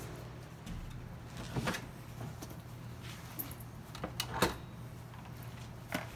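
Tools being picked up from a wooden shelf, with a handful of clunks and knocks as hard tools and a reciprocating saw are lifted and set against the wood. A faint steady low hum runs underneath.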